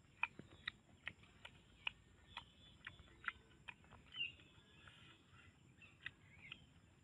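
A bird's repeated short, sharp call notes, about two to three a second, with a few brief chirps in between, faint.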